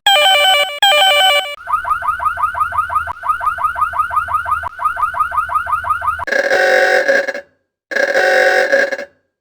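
Electronic ringing and alarm tones. Two short warbling bursts come first, then a fast repeating rising chirp about six times a second, and from about six seconds in, long ringing tones of about a second each with short gaps.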